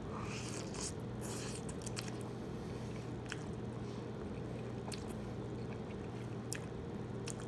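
A person eating instant ramen noodles from a fork: short wet slurps and chewing sounds come every second or so over a steady low hum.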